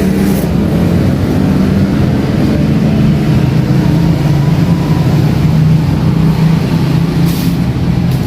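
A motor vehicle's engine running at a steady speed, with a loud, continuous low drone and road noise.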